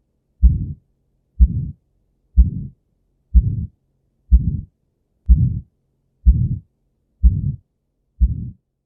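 Heart sounds of aortic stenosis, beating about once a second. Each beat is a sharp low thud followed by a rough murmur that fades over a fraction of a second: the systolic ejection murmur of blood forced through a narrowed aortic valve.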